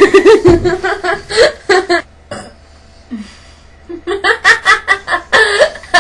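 Laughter in quick pulses, stopping about two seconds in and starting again at about four seconds.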